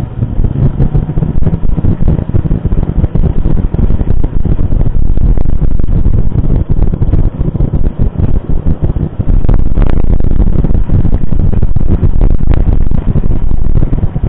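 Wind buffeting the microphone of a camera riding along on a mountain bike, a loud steady rumble, with a few sharp knocks in the second half.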